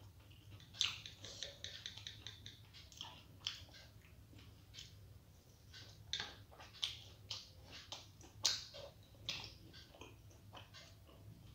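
Close-up mouth sounds of someone chewing soft steamed vegetable momos (dumplings): irregular wet smacks and clicks, the loudest a little under a second in and again about eight and a half seconds in, over a faint low hum.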